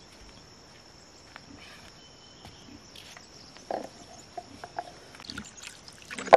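Steady high-pitched insect drone, with scattered light knocks and clinks as dishes are handled on a wooden plank. A short, louder sound comes near the end.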